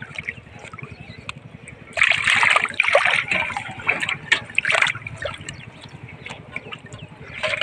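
Shallow floodwater splashing and sloshing as a plastic bottle fish trap is handled in it, with irregular splashes that are loudest from about two to five seconds in.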